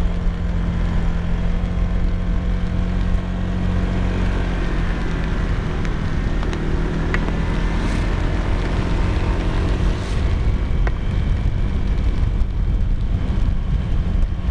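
Motorcycle ridden at speed on a rain-soaked road: a steady engine hum under heavy wind noise on the microphone, with the hiss of tyres on wet asphalt.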